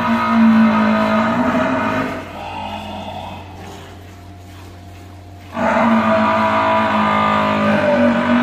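Water buffalo calf bawling: two long, loud calls. The first fades about two seconds in, and the second starts abruptly about five and a half seconds in.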